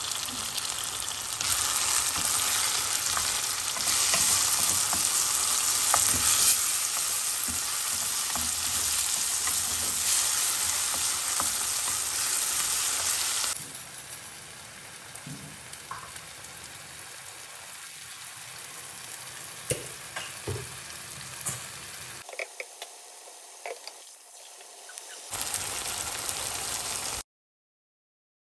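Onions, tomatoes and curry leaves frying in oil in a steel pan, sizzling steadily while stirred with a wooden spoon. About halfway through, the sizzle drops quieter with scattered small pops and clicks, then comes back loud briefly before cutting off suddenly near the end.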